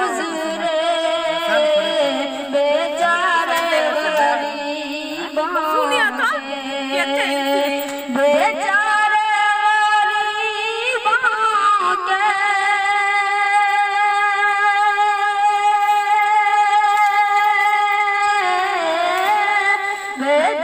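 A boy singing into a handheld karaoke microphone with a built-in speaker, in a high voice. He sings wavering, ornamented phrases, then holds one long steady note through much of the second half before the melody moves again near the end.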